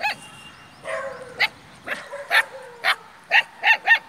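Puppies yipping: short, high-pitched barks repeated about every half second.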